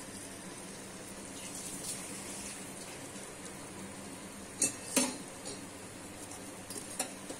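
Moong dal vadas deep-frying in hot oil in an iron kadai, a steady sizzle, with three sharp clinks of metal utensils: two close together about two-thirds of the way in and one near the end.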